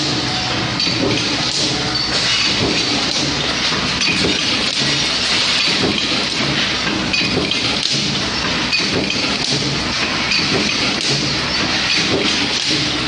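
Automatic hot-forging nut press line running: a continuous, dense clatter of many small metal impacts over a steady machine hum.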